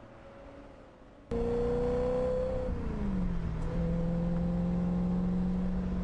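BMW E92 M3's 4.0-litre V8 engine accelerating. Faint at first, it turns loud and close about a second in; the engine note climbs, dips briefly about three seconds in, then climbs slowly again.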